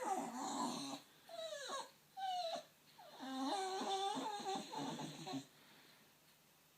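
Staffordshire bull terrier whining and grumbling in a run of pitched, wavering calls: a couple of short whines, then a longer warbling one, stopping about five and a half seconds in. She is vocalising at workmen she can hear but not see.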